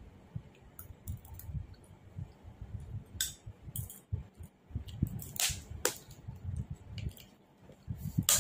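A person eating soft, syrup-soaked sweets close to the microphone: irregular muffled chewing thumps with sharp wet mouth clicks, a few louder clicks around the middle and one near the end.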